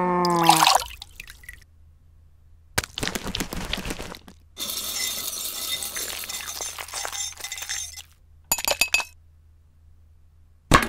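A short moo at the very start. Then clinking and splashing from a metal wire whisk beating in a ceramic bowl, in stretches with the longest lasting about three seconds. A single sharp click near the end.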